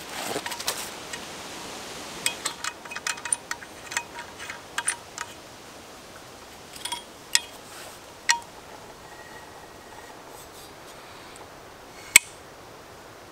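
A Silky Katanaboy folding saw drawn out of its fabric sheath with a rustle, then handled with a run of light metallic clicks. One loud sharp click near the end as the long blade swings open and locks.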